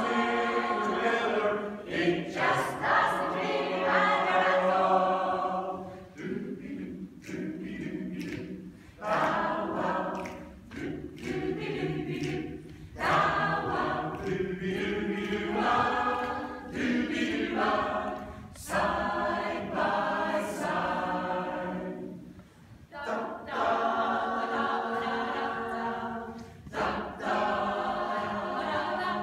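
Mixed choir of men and women singing a cappella, in phrases with short breaks between them.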